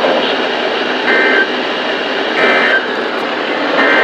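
Weather radio receiver hissing with heavy static, broken three times by short two-tone digital data bursts about 1.3 s apart: the Specific Area Message Encoding end-of-message tones that close an emergency alert broadcast.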